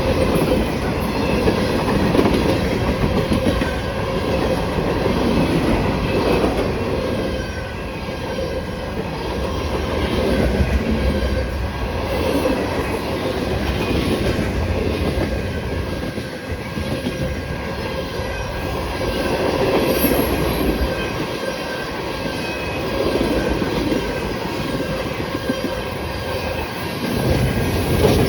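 A CSX freight train's cars rolling past, the wheels clattering over the rail joints with a faint squeal from the wheel flanges on the curve.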